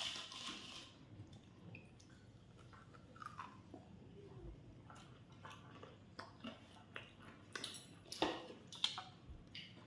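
A person chewing food, with faint wet mouth sounds and small clicks. A few sharper clicks come in the last few seconds.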